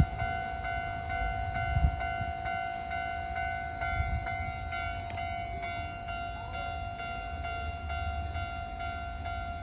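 Japanese railway level-crossing alarm ringing over and over, about two strokes a second, over a low rumble. The crossing is stuck closed by a power outage on the overhead line.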